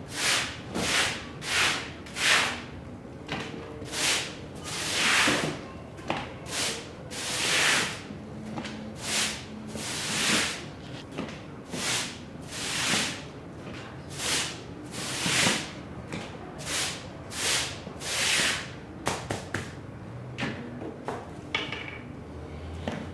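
Repeated swishing strokes worked across a rug, about one or two a second in an uneven rhythm, each a short hiss.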